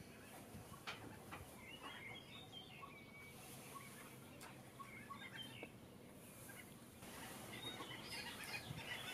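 A flock of pied avocets calling in scattered short high notes over a faint background hiss. The calls grow louder and busier about seven seconds in.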